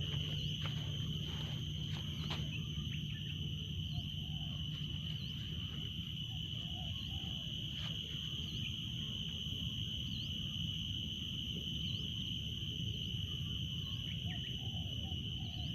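Outdoor ambience: a steady high-pitched drone with scattered short bird chirps over a low rumble, and a few faint clicks in the first half.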